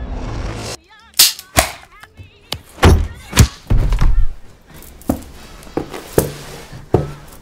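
Film fight sound: a rising swell that cuts off suddenly, then a rapid, irregular series of heavy thuds and blows, about ten hits, with brief voice sounds among them.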